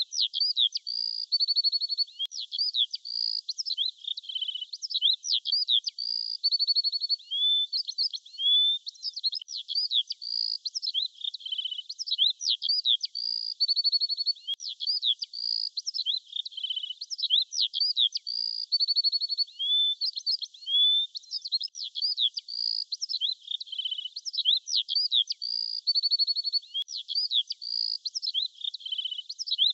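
High-pitched bird chirps, quick sweeps and short trills, with the same song phrase repeated over and over.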